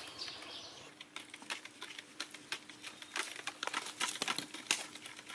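Charcoal fire crackling, with irregular sharp snaps and pops several times a second as the coals catch and start to glow.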